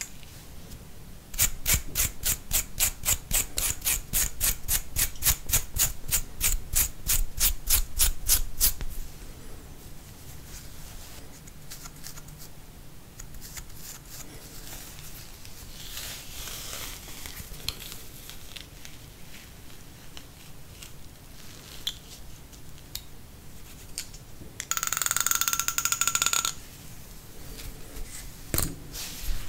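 Close-up scratching at flaky skin around the ear and nape, scaling from seborrheic dermatitis: a fast, even run of strokes, about five a second, for some seven seconds, then quieter, scattered scraping. Near the end comes a louder rasp that lasts about two seconds.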